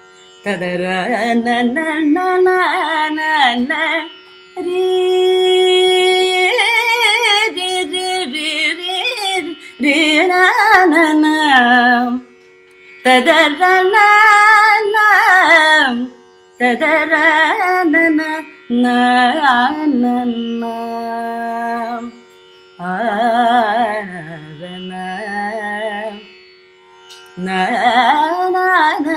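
Female Carnatic vocalist singing long, gliding phrases in raga Ravichandrika, with short breaks between phrases, over a steady drone.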